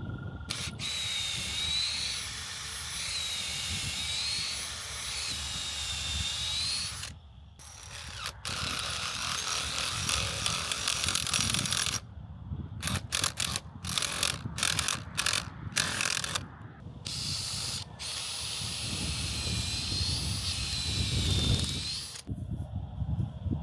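Power drill running: a whining motor that wavers in pitch through several long runs, with a stretch of short on-off trigger bursts in the middle.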